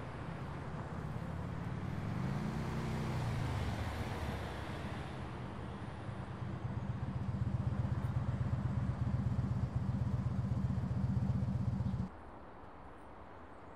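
Small motorcycle engine running as the bike is ridden, its pitch rising about two seconds in. It then settles into a steady pulsing drone that grows louder as it approaches, and cuts off abruptly about twelve seconds in, leaving a faint background.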